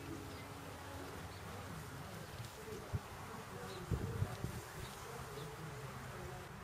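Steady low insect buzzing, with a few dull thumps about three seconds and four seconds in.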